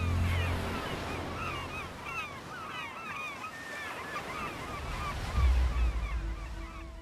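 A flock of birds calling over one another, many short rising-and-falling calls, over a soft wash of noise like surf. Music fades out in the first second, and a low rumble about five and a half seconds in is the loudest moment.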